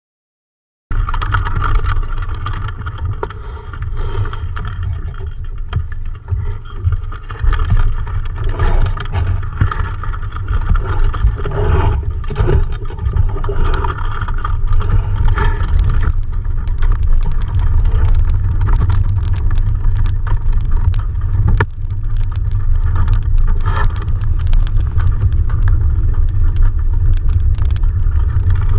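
Wind buffeting the microphone of a camera mounted at the top of a small sailboat's mast: a loud, steady low rumble with a hiss above it, starting about a second in. Frequent sharp clicks and knocks run through it, thicker in the second half.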